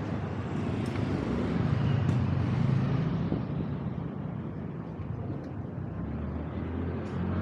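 Street traffic heard while riding along a city road: vehicle engines and road noise with a continuous low rumble. It grows louder about two to three seconds in, and a steady low engine hum sets in near the end.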